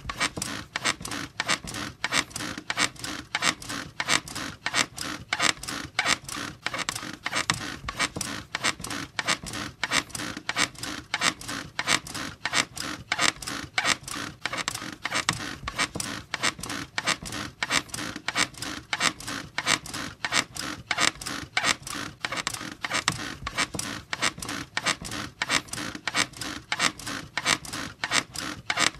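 Bed springs squeaking over and over in a fast, even rhythm, as if the bed is being rocked or bounced.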